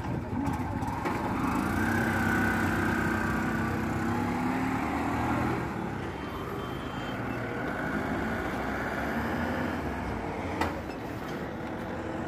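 An auto rickshaw's small single-cylinder engine running and pulling away, its pitch rising slightly and its sound loudest for the first five seconds or so before dropping back. A single sharp knock comes about ten and a half seconds in.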